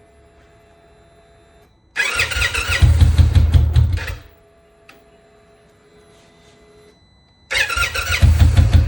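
2025 Indian Chieftain PowerPlus 112 V-twin engine started twice: each time it catches, runs for about two seconds and shuts off, the bike's no-start fault. Between the two attempts only a faint steady hum.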